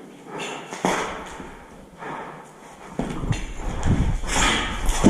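Footsteps and scattered knocks on a hard floor. A low rumble with denser thumps starts about three seconds in.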